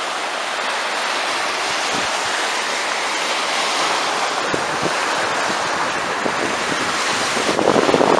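Sea waves washing steadily on a beach, with wind on the microphone that gusts louder near the end.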